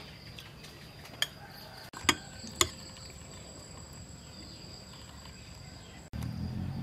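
A metal spoon clinking sharply against a ceramic soup bowl three times, over a steady high insect trill from the garden.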